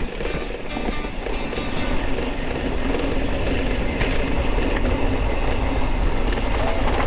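Off-road vehicle driving on a rough trail: steady engine and rumbling drive noise with scattered small rattles.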